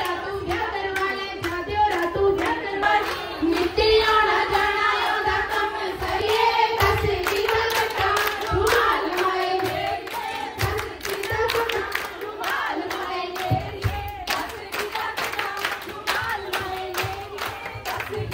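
A group of women singing Punjabi boliyan together, with steady rhythmic hand clapping keeping the beat, as in giddha.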